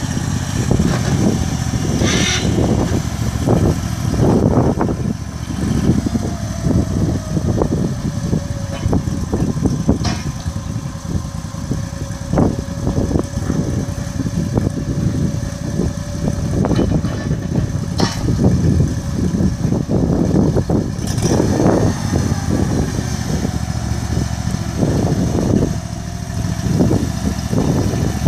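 The small gasoline engine of a container-moving Mule runs continuously, growing louder and softer as the machine works. A few sharp knocks stand out above it.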